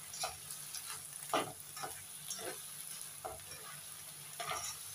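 Pork and sliced chilli peppers sizzling in a non-stick wok while a spatula stirs and tosses them, scraping and clattering against the pan every half second or so over a steady frying hiss.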